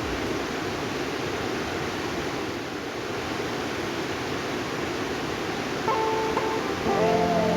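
Steady rushing of river water. Background music with a plucked, guitar-like instrument comes in about six seconds in and gets louder near the end.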